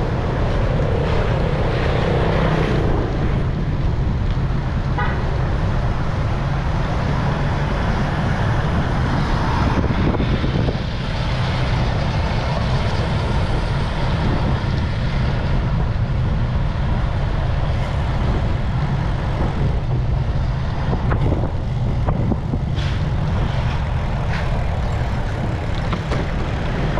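Steady wind rush and road noise on a moving action camera's microphone while cycling along a road, with traffic sound mixed in.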